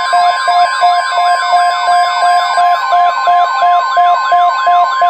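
NOAA Weather Radio's steady 1050 Hz warning alarm tone, layered with a rapid siren-like alert of falling whoops and short beeps, about three a second. It signals an incoming weather alert.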